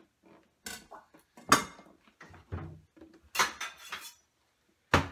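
A kitchen knife and other items set down and handled on a wooden chopping board: about five irregular knocks and clatters, the loudest about a second and a half in.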